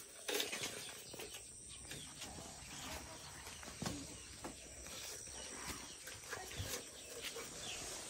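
Light clicks and rattles of bamboo slats being handled while weaving a bamboo fish trap, over a quiet rural background with faint animal calls.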